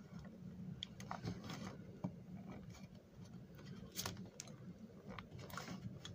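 Faint, scattered plastic clicks and taps as a model train's plastic body shell is pressed and shifted on its chassis to adjust the fit, over a low steady hum.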